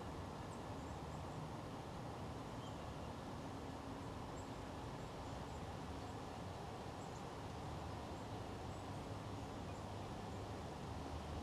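Quiet rural outdoor ambience: a steady low rumble and hiss with a few faint, brief high chirps from small birds scattered through it.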